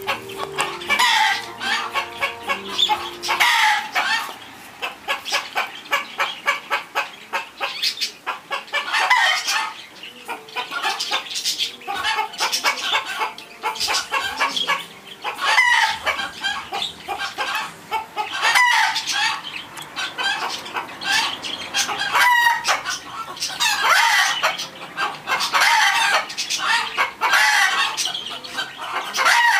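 Chickens clucking in short bursts every few seconds, over small crunching clicks from a Löwchen puppy chewing a raw sardine.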